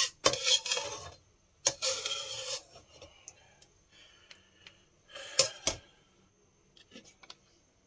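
Slotted metal spatula scraping the bottom of a wok, three rasping strokes, with a few light clicks of metal on metal near the end.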